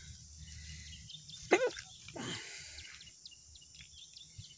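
Outdoor rural ambience with small high chirps, as of birds, and one short, loud animal call about a second and a half in, followed by a weaker call shortly after.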